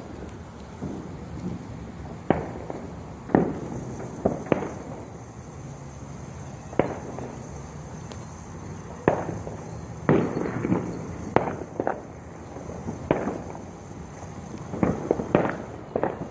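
Consumer fireworks going off in irregular sharp bangs and pops, about fifteen, coming more thickly in the second half.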